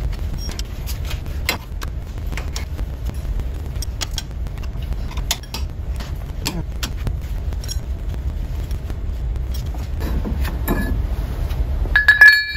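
Spanner clicking and scraping on the nuts of a wire-wheel spinner adapter at a car's hub, with scattered light metallic clinks over a steady low rumble. Near the end a small metal part gives one loud, ringing clink.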